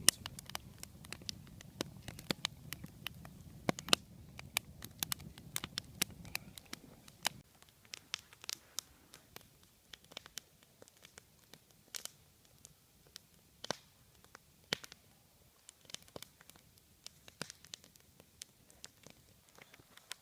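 Wood campfire of stacked logs burning, with irregular sharp crackles and pops from the burning wood. A low rushing sound under it stops about seven seconds in.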